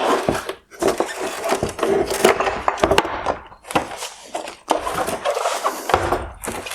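Hard plastic headlight lens and housing parts scraping and rubbing as they are handled, with several sharp cracks and clicks at uneven intervals.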